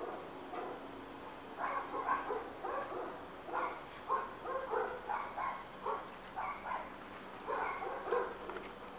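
Dog barking, a steady run of short barks at about two a second.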